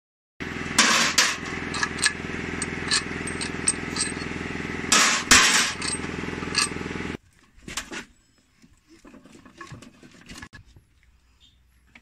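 Power impact wrench hammering in short bursts over a steady machine hum while the bolts of a backhoe rear-axle brake housing are taken out, with metal clinks between bursts. The hum stops abruptly about seven seconds in, leaving quieter clanks of metal parts being handled.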